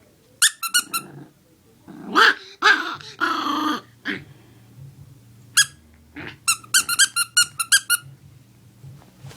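Squeaky plush squirrel toy squeaking in quick runs as a six-week-old chiweenie puppy bites it, a few squeaks near the start and a rapid string of about seven near the end, with the puppy growling in between.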